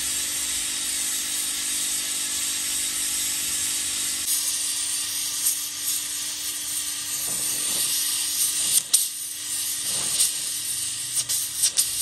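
Gas welding torch hissing steadily while a steel hinge is welded onto a refrigerator door, with sharp crackling pops in the second half.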